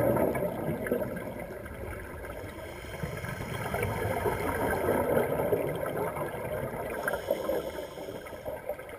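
Muffled underwater water noise: a rough, steady wash that is louder at the start, sinks a little in the second second, and swells again midway.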